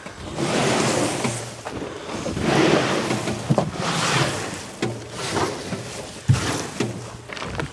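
Wood-chip mulch being unloaded from a dump bed, a rough rushing and scraping that swells and fades several times, with a few sharp knocks.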